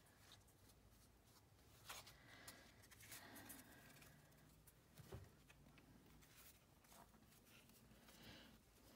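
Faint rustling and light snaps of a stack of cardboard trading cards being flipped through by hand, with a few sharper clicks, the loudest about five seconds in.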